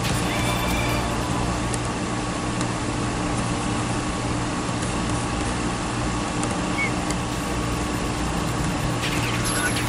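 Steady mechanical hum and hiss with a constant low drone, like a fan running, with a few faint clicks.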